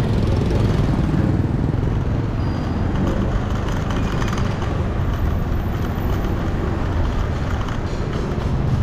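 Steady traffic noise of a busy street, with the engines of passing vehicles.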